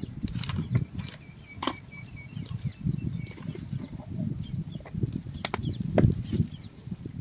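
Open fire of dry leaves and sticks burning, the flames fluttering with scattered crackles and a few louder snaps.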